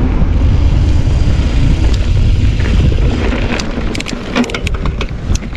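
Wind buffeting an action camera's microphone during a mountain-bike ride, a heavy low rumble, with sharp clicks and rattles from the bike on the rough, stony trail that become more frequent in the second half.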